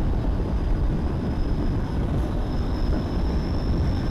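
Steady wind rush and road rumble from a Triumph Tiger 800 XRx motorcycle cruising at highway speed, with wind buffeting the rider's microphone. A faint, thin high whine runs through it and breaks off briefly about two seconds in.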